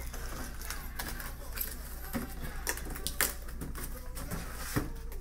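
Cardboard shipping box being handled and closed around a wheel: flaps folded and the box shifted, giving irregular sharp taps, knocks and scrapes of cardboard.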